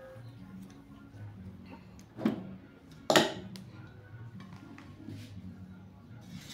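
Two sharp metallic knocks from a round metal cake tin and a knife being handled as the baked cake is loosened from the tin, about two and three seconds in, the second louder. Soft background music plays throughout.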